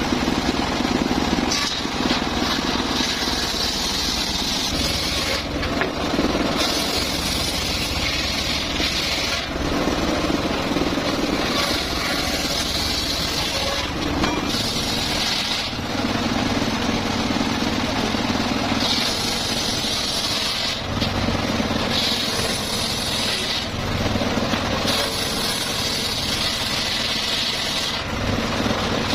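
Circular saw running steadily and cutting mahogany wood, its sound switching every few seconds between a high whine and a lower drone as the saw repeatedly cuts through the wood.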